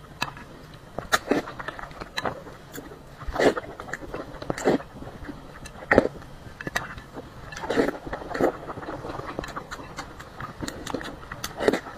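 Close-miked eating sounds: slurping spicy broth off a metal spoon and chewing soft boiled egg, in irregular bursts about once a second, with sharp clicks of the spoon.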